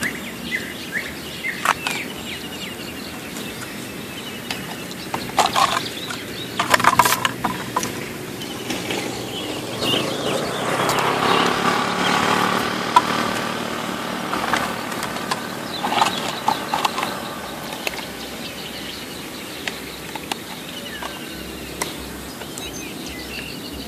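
An engine swells and fades about ten to thirteen seconds in, over steady outdoor background noise, with a few sharp clicks and knocks.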